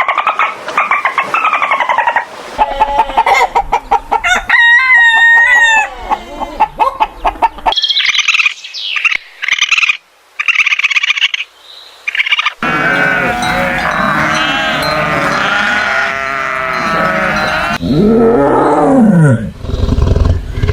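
A run of about six short animal-call recordings cut one after another, with domestic chickens calling among them.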